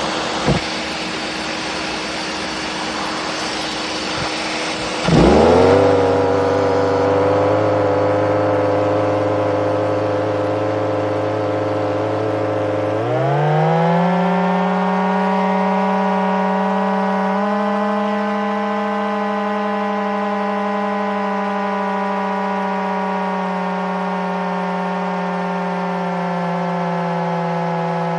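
Homemade supercharged turbine engine: a steady rushing of air, then a sudden loud pitched hum about five seconds in that settles low. Around thirteen seconds the hum rises to a higher steady whine, which it holds.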